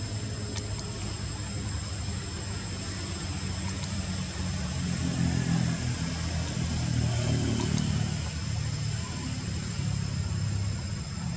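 An engine running in the background, a low steady hum that grows louder in the middle and eases off again, with a steady high-pitched whine above it.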